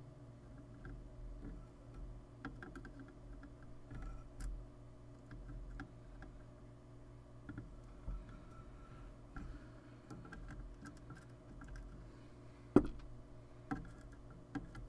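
Light clicks and taps of small hand tools on a UPS circuit board, over a steady low hum, with one sharp click about thirteen seconds in.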